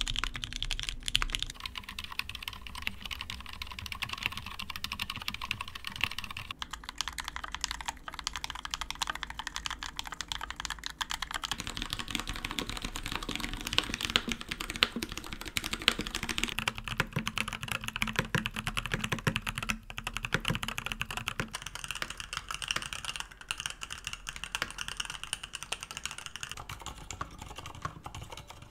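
Continuous typing on a succession of mechanical keyboards, the character of the key sound changing every several seconds as one board gives way to the next. First comes a Geonworks F1-8X with lubed Cherry MX Black linear switches; around the middle it is a Keychron K6 with lubed Gateron Brown tactile switches.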